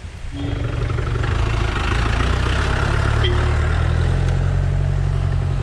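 Vehicle engine running, growing louder over the first second or two and then holding steady.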